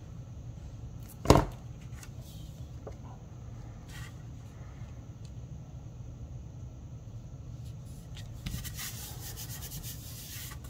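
Hands handling cardstock on a wooden tabletop: one sharp knock a little over a second in, a few faint taps, then from about eight seconds in a dry rustling as the paper panel is pressed and rubbed down. A steady low hum lies underneath.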